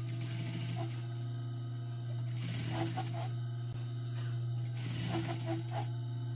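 Juki sewing machine stitching in two short runs, about two and a half and five seconds in, over a steady low hum.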